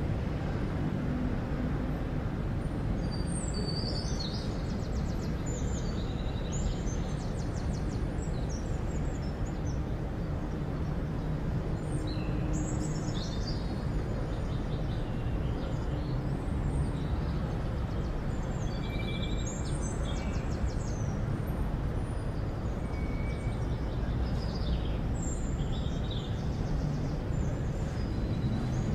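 Town ambience: a steady low rumble of distant traffic, with small birds chirping and twittering over it again and again.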